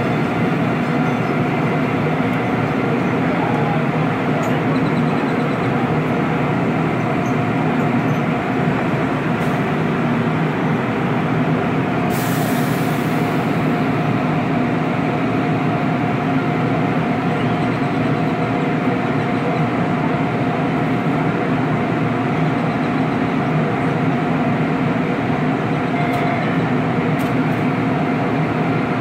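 DART light rail train humming steadily, with a brief burst of hiss about twelve seconds in.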